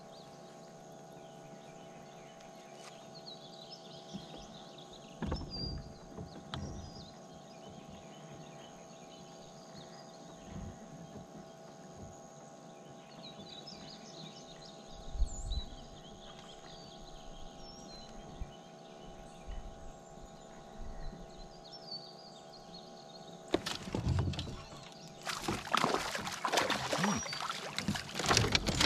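Ambient sound aboard a fishing kayak: a faint steady hum with a few soft knocks and faint chirps. Near the end come loud rustling and crackling right at the microphone, as gear is handled.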